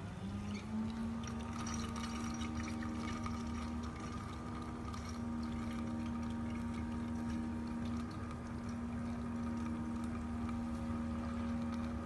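Small electric water pump of a portable K-Cup coffee maker humming steadily as it pushes water through the capsule. It starts at the beginning, rises a little in pitch as it comes up to speed, then holds, with faint ticks over it in the first few seconds.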